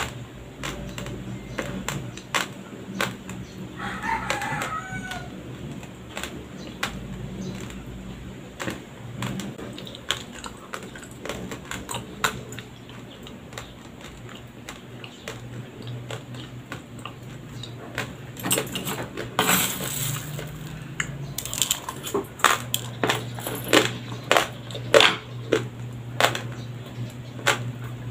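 Close-miked crunching of dry raw white rice being chewed, a quick run of sharp crackling crunches that grows denser and louder in the second half, with a longer rustling scrape about two-thirds of the way in. A rooster crows in the background about four seconds in.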